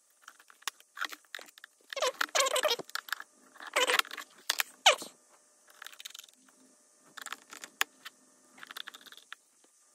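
Irregular clicks, scrapes and rustles of a hard drive's circuit board being handled and pressed back onto the drive's metal casing, with a sharp click near the end.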